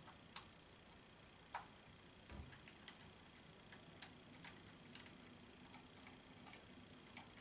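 Faint, irregular small clicks and ticks of a precision Torx T5 screwdriver turning a screw out of a plastic camera housing, over a low steady hum.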